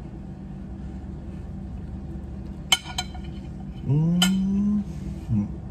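A man eating a bite of pasta from a fork. A few sharp clinks come about halfway through, then a long rising "mmm" of approval as he chews.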